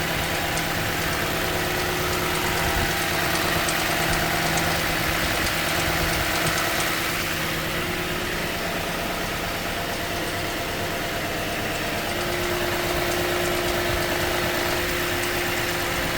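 2015 Toyota Sequoia's V8 engine idling as it warms up, with a clicking ticking over the steady running. The owner wonders whether a timing belt tensioner is the cause.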